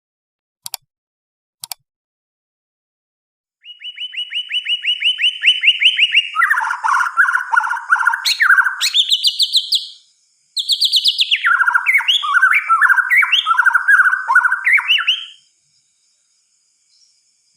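White-rumped shama singing: after two faint clicks, a fast run of repeated notes builds in loudness, breaks into varied whistled phrases, pauses briefly, then sings a second phrase of quick, varied notes.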